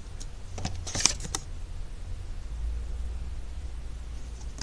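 Paper cards and a cardboard box being handled: a few short rustles and taps about a second in, over a low steady hum.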